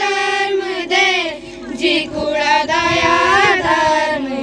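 A group of children singing a Pahadi devotional hymn to Saraswati together, held melodic lines rising and falling, picked up by one handheld microphone.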